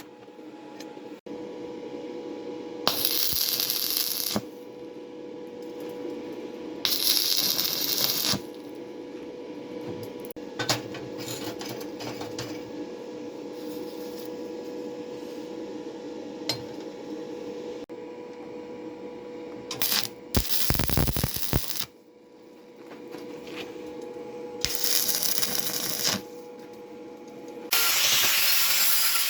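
Metalworking: several separate bursts of hissing noise, each a second or two long, with metal clinks between them over a steady hum.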